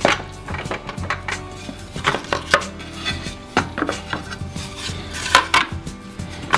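A tile and pieces of wood knocking and clattering as they are lifted, shifted and set down on a tile saw's tray, a string of sharp knocks with a few louder ones.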